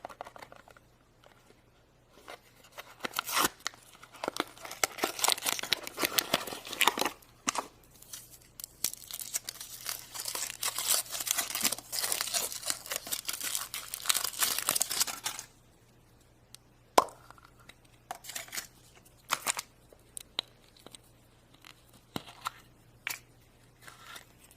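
Wrapper of a chocolate surprise egg being torn open with crinkling and crunching for over ten seconds. It stops abruptly, followed by a few scattered sharp clicks and taps.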